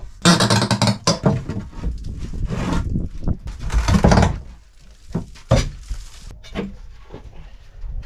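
Old wooden boards being wrenched off a shack wall by hand: three long bouts of creaking and splintering wood in the first half, then a scattering of short knocks and thuds of loose wood.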